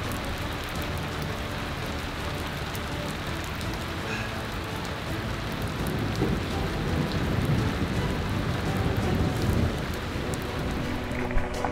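Steady rain falling, with a low rumble of thunder building for a few seconds past the middle.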